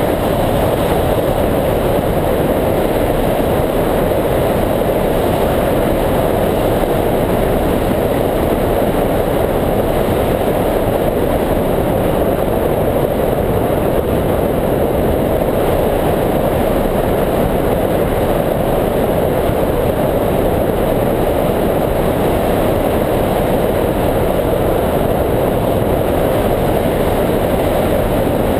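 Steady rush of airflow buffeting the microphone of a camera mounted on a hang glider's wing in flight: a loud, even wind noise that holds unchanged throughout.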